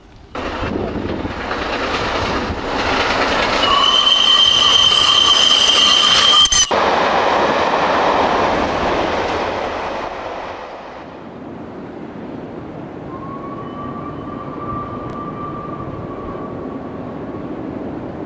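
Steam-hauled passenger train running past close by: a loud rushing of the train that swells, with a steady high-pitched tone for about three seconds in the middle that cuts off abruptly. The sound then drops to a quieter, more distant running train, with a faint steady high tone for a few seconds near the end.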